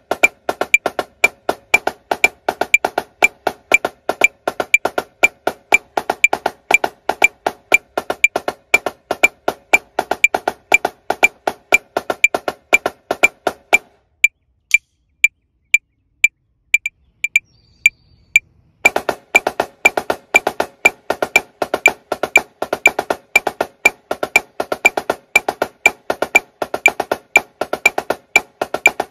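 Marching snare drum playing the 16th-note double beat exercise over a metronome clicking at 120 beats a minute. About halfway through, the drumming stops for about five seconds, leaving only the metronome clicks. It then resumes at the same tempo with the gallop exercise.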